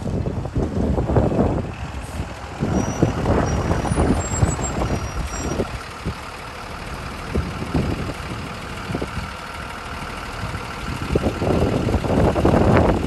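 School bus engine running as the bus pulls up and idles at the stop, with wind gusting on the microphone, strongest near the start and end.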